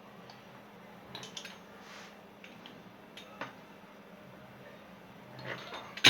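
Kitchen handling sounds at the stove: a few light taps and clicks, then a louder clatter of a pan or utensil near the end, over a faint steady hum.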